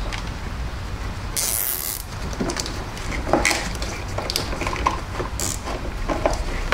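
Hands handling wires and plastic connectors in an ATV wiring harness: scattered rustles and small clicks, with a short hissing rustle about a second and a half in, over a steady low rumble.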